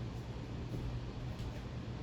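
Craftmade 52-inch ceiling fan coasting down after being switched off: a steady faint whir with a low hum.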